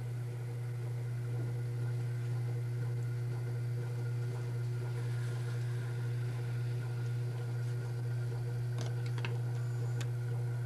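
A steady low hum, unchanging throughout, with a few faint clicks near the end.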